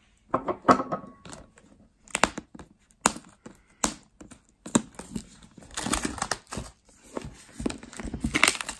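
Plastic shrink-wrap being picked at and peeled off a cardboard box, crinkling and crackling in irregular bursts, busiest in the second half.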